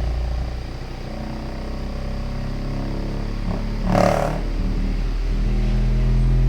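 8-inch subwoofer in a ported box playing a low-frequency test tone: a deep, steady bass with a buzzing edge, and a short noise about four seconds in. The driver is not yet screwed into the box, and the volume is kept down so it does not rattle.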